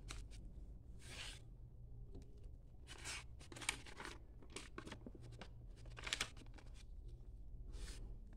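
A square sheet of origami paper being folded and creased by hand: faint, short paper rustles and swishes at irregular intervals as the diagonal folds are made and pressed flat.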